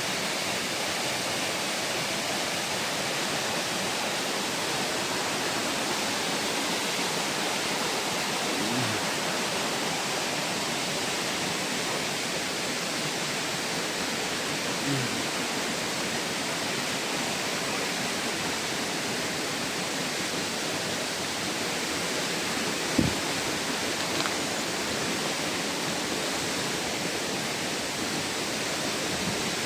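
Steady rushing of water from a waterfall or stream, with a few faint knocks, the sharpest one about 23 seconds in.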